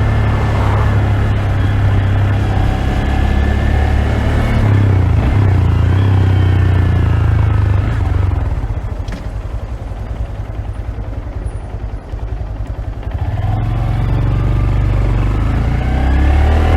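Honda Grom's 125 cc single-cylinder four-stroke engine running, muffled as if picked up from inside a pocket. About eight seconds in the engine drops to a quieter, lower run for several seconds, then picks up again with a rising pitch near the end.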